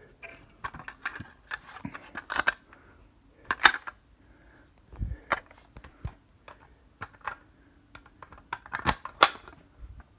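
Handling noise: irregular clicks and clacks of hard objects being moved and set down, with a few louder knocks and a dull thump about five seconds in.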